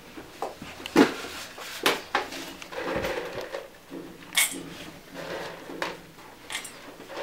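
Dried herbs and their containers being handled: scattered knocks and clicks, with a short rattle about four seconds in as herbs are poured into a metal bowl.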